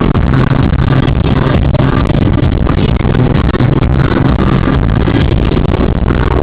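Music playing over the steady drone of a car driving in traffic, heard from inside the cabin through a small camera microphone.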